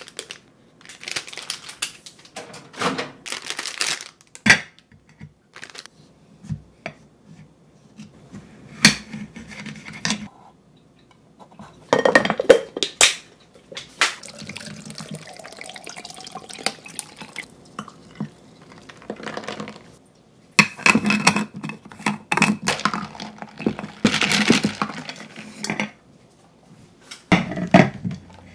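Kitchen handling sounds: a plastic bag rustling, an enamelware plate and other dishes clinking and set down on a countertop, and a stretch of liquid being poured. These come as a string of separate knocks and clatters with short pauses between them.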